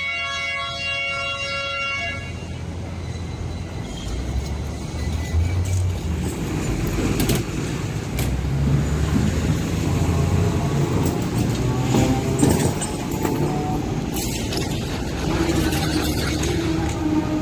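Street traffic rumble as a Hong Kong double-decker electric tram runs by, with a long steady vehicle horn sounding for the first two seconds or so.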